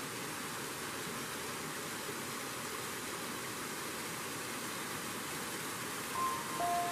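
Steady rush of water from a waterfall cascading over rock. A few musical notes come in near the end.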